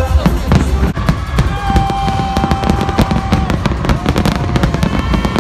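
Aerial fireworks going off in a rapid run of bangs and crackles, with music playing along with them, including long held notes.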